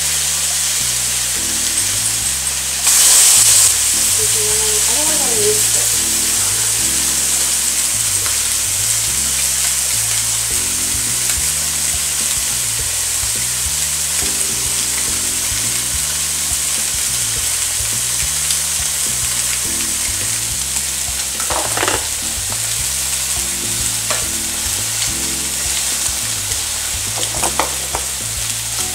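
Tilapia fillets and vegetables sizzling steadily in hot frying pans, with a brief louder hiss about three seconds in. A few light clicks near the end.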